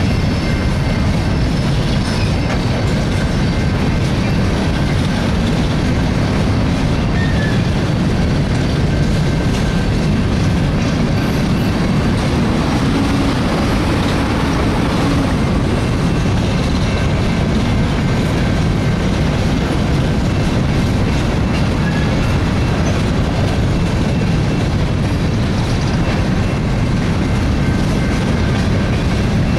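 Empty coal cars of a freight train rolling steadily past: a continuous rumble of steel wheels on rail with clickety-clack over the joints and faint steady high ringing from the wheels.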